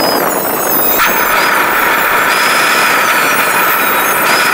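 Electric angle grinder with an abrasive disc running against flat steel sheet-metal plates, a steady high whine and grinding hiss. The grinding note grows harsher about a second in as the disc bites into the metal.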